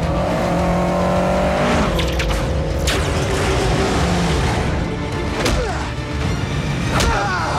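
A film soundtrack mix: a car engine revs up and holds at high revs over score music. Several sharp hits and short squealing glides follow later on.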